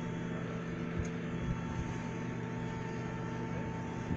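An engine or machine running at a steady hum, with a constant high whine over it and a couple of faint knocks.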